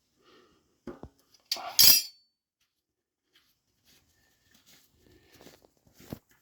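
Metal tools and parts clinking while an electric bike hub motor is taken apart: a knock about a second in, a loud metallic clatter with a short ring just before two seconds, then faint small clicks.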